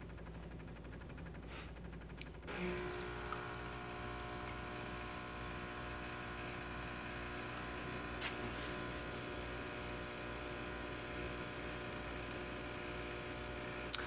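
Jura Z10 superautomatic espresso machine's pump during a cold-brew extraction: a low hum, then about two and a half seconds in the pump starts a pulse and runs on as a steady hum, with a few faint clicks. On cold drinks this pump works in pulses, less hard than for hot drinks.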